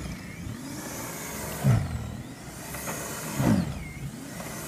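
Small electric snowblower running through deep snow: a steady motor hum that swells louder about every two seconds. The machine is underpowered and barely up to the job.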